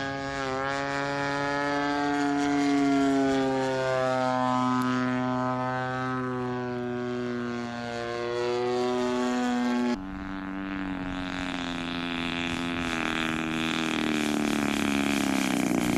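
40cc engine and propeller of a large-scale radio-control Morane Saulnier AI model in flight, the engine note gliding up and down as the plane passes and changes throttle. About two-thirds of the way in the sound cuts to a steadier note that falls slowly as the plane comes in low to land.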